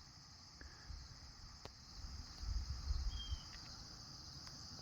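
Faint, steady high-pitched insect chorus, with a low rumble that swells briefly around the middle and a single short high chirp about three seconds in.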